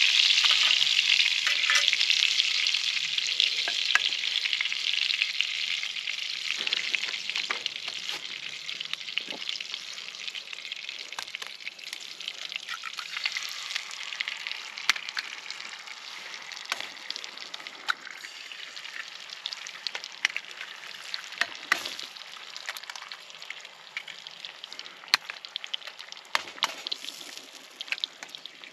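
Food frying in a pan, sizzling loudly at first and dying down gradually, with scattered sharp pops and crackles.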